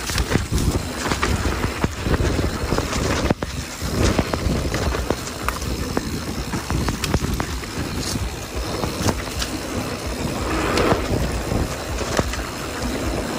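Mountain bike riding fast down a dirt trail: a steady low rumble of tyres and air rushing past, with frequent clicks and rattles from the bike over bumps.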